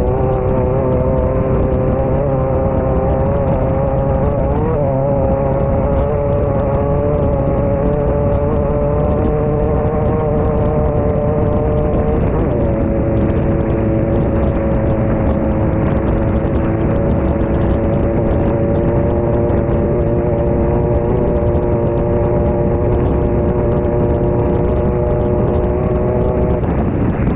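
Engine of a Class 9 off-road race buggy at speed, heard from inside the car over a constant rush of wind and terrain noise. It holds steady revs, with a clear drop in pitch about twelve seconds in.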